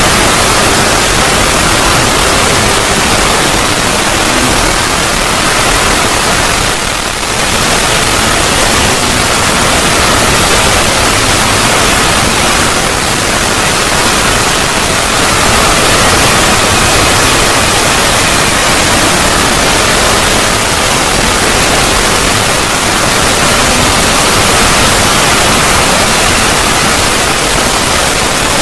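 Loud, steady static-like noise spread evenly across all pitches: a synthetic 'void' logo sound effect. It dips briefly about seven seconds in.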